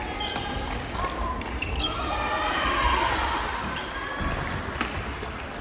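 Shoes squeaking on an indoor court floor, with a few sharp hits, during a doubles rally.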